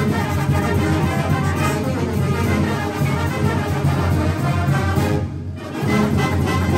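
Background music with a steady low bass line, dipping briefly about five seconds in.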